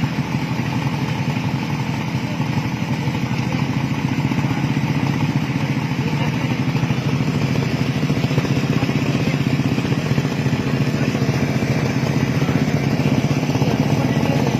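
Kawasaki Ninja motorcycle engine of a home-built light aircraft running steadily at an even speed.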